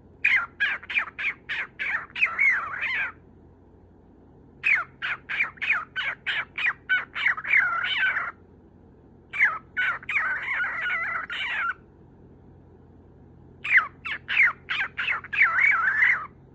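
Lutino cockatiel calling in four bouts, each a quick run of short chirps that turns into warbling chatter, the bouts a second or two apart. These are attention-seeking calls from a lonely bird wanting company.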